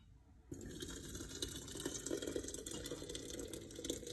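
Hot berry drink poured in a steady stream from a saucepan through a strainer into a glass jug, starting about half a second in.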